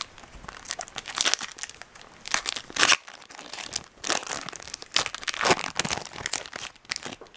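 Foil wrapper of a Topps Chrome baseball card pack crinkling and tearing open in a series of irregular crackly bursts.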